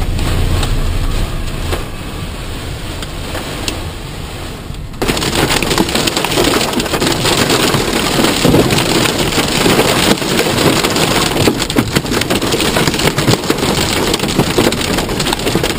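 Heavy storm rain hitting the roof and windshield of a minivan, heard from inside the cabin: a steady hiss that jumps suddenly louder about five seconds in, becoming a dense patter of many small hits.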